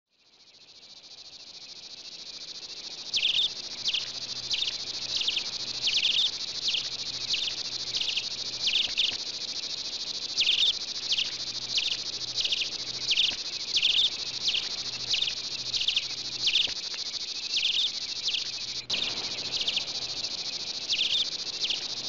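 Insects chirring: a steady high chirr that fades in over the first few seconds, with louder chirps repeating about one and a half times a second from about three seconds in.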